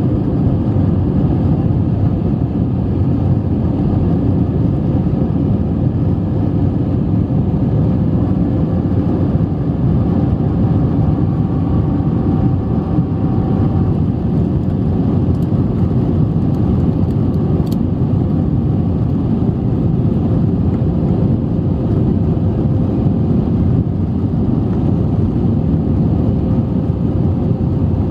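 Steady cabin noise inside an Airbus A320 climbing after takeoff: jet engine and airflow noise heard from a seat by the wing, deep and even, with a faint steady hum running through it.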